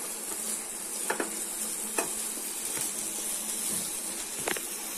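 Pasta and egg mixture sizzling in a nonstick frying pan as a wooden spatula stirs it, with a steady hiss and a few sharp taps and scrapes of the spatula against the pan.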